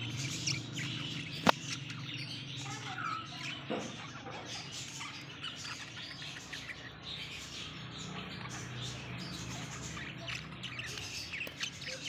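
A group of caged budgerigars chirping and chattering in many short overlapping calls, over a low steady hum. A single sharp click about a second and a half in.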